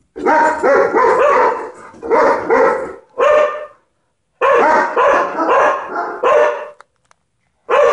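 German shepherd barking in quick runs of loud barks with bending pitch, with a short pause about four seconds in and one last bark near the end.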